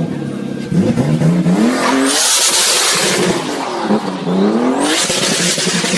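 BMW M car engine revving hard twice, the pitch climbing each time, with a loud rushing hiss after each climb.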